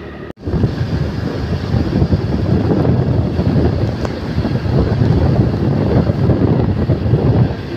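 Wind buffeting the microphone: a loud, irregular low rumble that starts abruptly less than half a second in.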